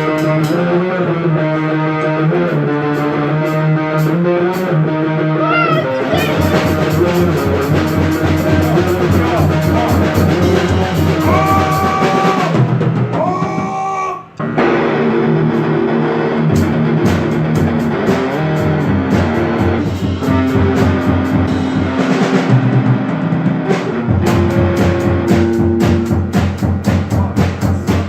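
A beginner rock band playing: electric guitar, bass and drum kit, performed by players with only about a month on their instruments. The drums thicken about six seconds in, and there is a brief break about halfway through before the band comes back in.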